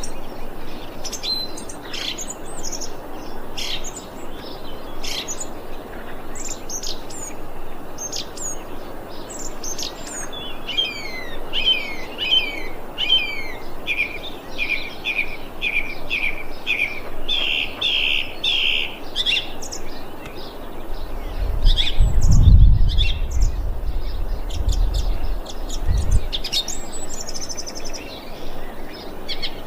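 Thrush singing: a string of short high whistled notes and slurs, with a long run of the same note repeated a little under twice a second in the middle. A low rumble lasts a few seconds about two-thirds of the way through.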